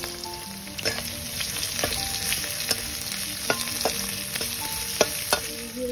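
Sliced onions, green chilies and whole spices sizzling in hot oil in a kadai as they are stirred, a steady hiss with several sharp clicks.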